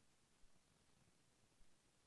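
Near silence: faint room tone, with a couple of faint low thumps, one about half a second in and one near the end.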